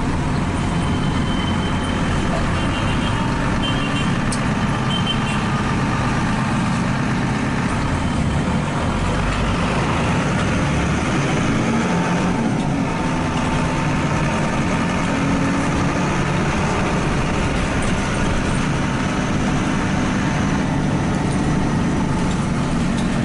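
Diesel bus engine and road noise heard from inside the moving bus's cabin, a steady drone whose engine note shifts up and down a few times as it drives through traffic.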